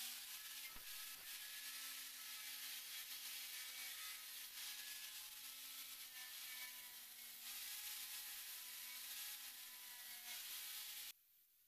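Angle grinder with an abrasive disc running steadily, its disc rubbing along the edge of a pallet-wood armrest to sand it smooth. The sound cuts off suddenly near the end.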